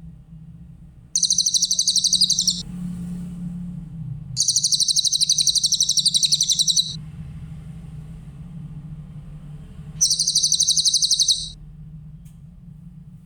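Cililin bird singing: three rapid, high, buzzy trills, the middle one longest, over a steady low hum.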